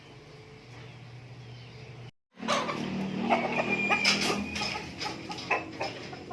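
Free-range native chickens clucking and calling, with many short clicks of pecking and scratching, after a sudden cut. Before the cut, a steady low hum with faint bird chirps.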